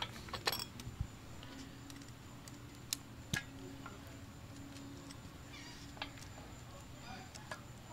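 Scattered small metallic clicks and taps from handling a cable-actuated hydraulic disc brake caliper as it is seated on the fork mount and a hex key is set to its bolts, with two sharper clicks about three seconds in.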